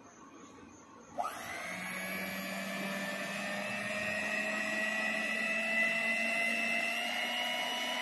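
Electric hand mixer switched on with a click about a second in, then its motor running steadily with the beaters spinning in the air, the whine creeping slowly up in pitch.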